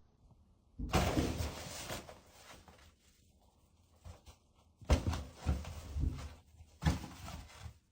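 A burst of noise about a second in, then several dull knocks and thumps in a small room.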